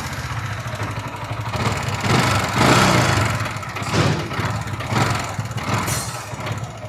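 Yamaha R15 V4's single-cylinder engine running, with the throttle blipped several times, and with the irritating rattling knock ('kadkad') that its owner says grows louder as the engine heats up.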